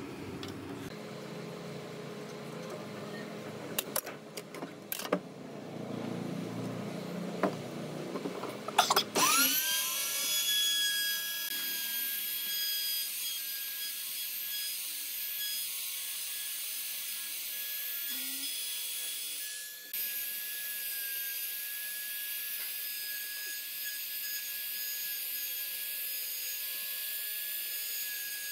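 A few handling knocks, then a compact trim router's motor starts about nine seconds in, whining up to a steady high pitch and running while it routs a hinge recess in a wooden frame rail.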